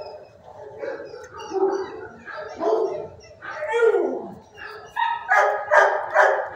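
Shelter dogs barking and yelping, with a falling whine about four seconds in, then a run of loud barks near the end.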